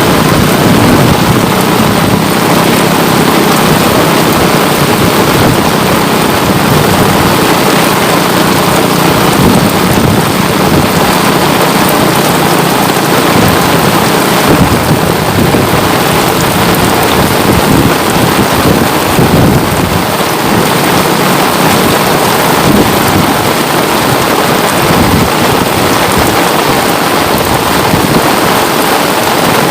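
Steady rain falling, a dense even hiss with no letup.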